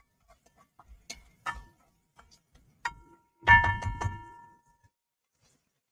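Light clicks of a spatula stirring vegetables in a cast iron Dutch oven, then, a little past halfway, a quick run of clinks as the utensil is knocked against the pot, leaving a short metallic ring that fades within a second.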